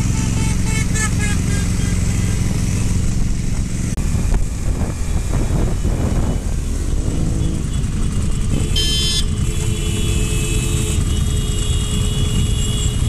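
Motorcycles riding in a slow group: the rider's BMW motorcycle engine and wind noise, with other engines rising and falling in pitch around the middle as the group speeds up and slows down. A brief high-pitched tone about nine seconds in, followed by fainter steady high tones.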